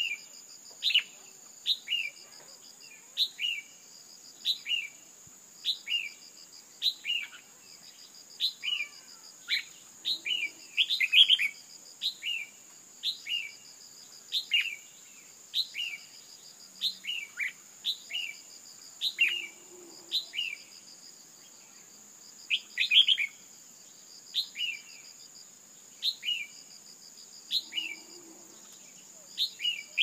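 Female red-whiskered bulbul giving short, sharp calls about once a second, some in quick pairs. These are the kind of female calls played to rouse male bulbuls. A steady high insect buzz runs underneath.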